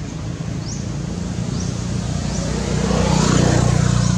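A motor vehicle passing, its sound swelling to a peak about three seconds in and then easing off. A short high rising chirp repeats about once a second through it.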